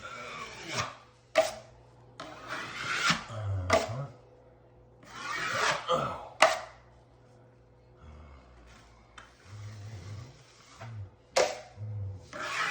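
Drywall knife scraping setting-type joint compound across sheetrock in about four long strokes, with sharp clicks in between.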